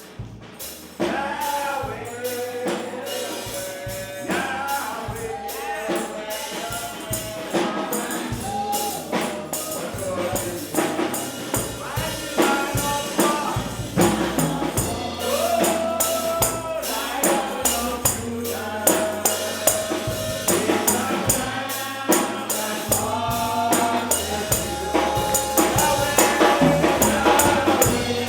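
Gospel worship music: voices singing a melody over a steady beat of tambourine, drums and bass, growing louder toward the end.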